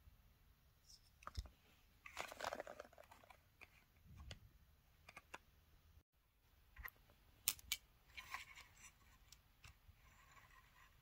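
Faint handling noise from small cosmetic samples and their packaging: scattered light clicks and short rustles, with two longer bursts of rustling about two seconds in and again near eight seconds.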